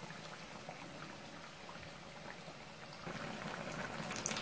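Hot oil sizzling and crackling around batter-coated sandwich pakoras deep-frying in a steel pan. It grows louder about three seconds in.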